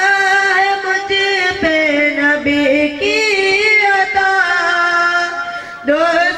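A boy singing a naat into a handheld microphone, drawing out long held notes that step down in pitch. There is a short break near the end before the next phrase begins.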